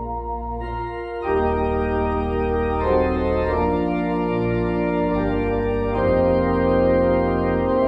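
Organ playing slow held chords over a sustained bass, the harmony changing every second or two and the sound growing fuller and louder about a second in.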